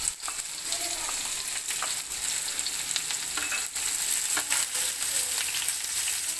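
Chopped onion, garlic and ginger sizzling in hot oil in a frying pan, with a wooden spatula scraping and tapping against the pan as it is stirred.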